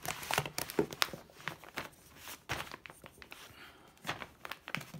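Irregular clicks, knocks and rustling from a Motorola Astro Spectra mobile radio being handled and moved on a table.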